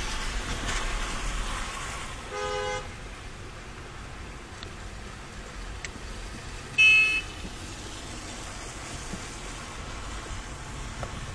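Two short car-horn toots about four seconds apart, the second louder and higher-pitched, over the steady hiss of tyres on a wet road heard from inside a car.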